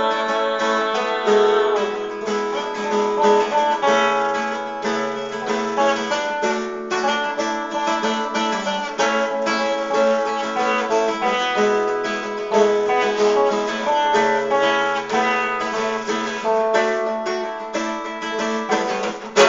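Acoustic guitar playing an instrumental break of the song, picked notes over steady strummed chords with no singing.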